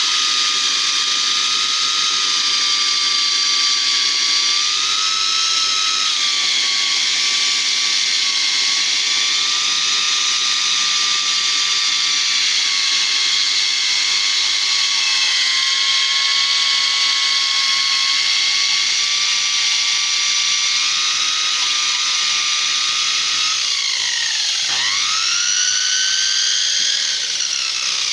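Homemade bandsaw built from a DeWalt circular saw: its universal motor, run at reduced voltage from a transformer, whines steadily as the narrow blade saws through a thick spruce beam. About 24 seconds in the pitch dips sharply and climbs higher, then falls steadily near the end.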